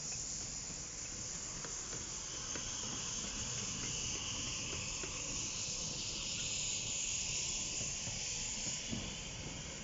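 A 15-inch-gauge steam locomotive moving slowly past with steam hissing steadily, the hiss loudest a little past the middle, over a low rumble.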